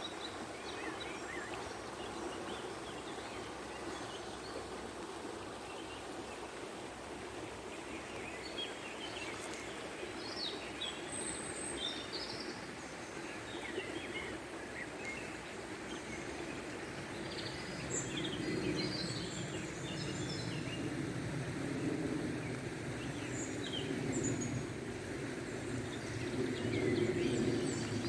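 Water flowing steadily while small birds chirp with short, high calls, more often in the second half. The rush of the water grows louder about two-thirds of the way in.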